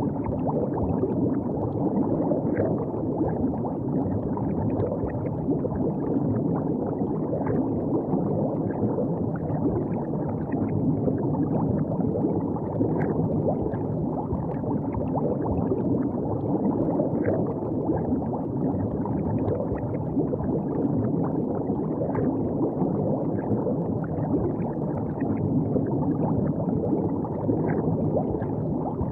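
River water flowing and gurgling steadily, with small splashes throughout.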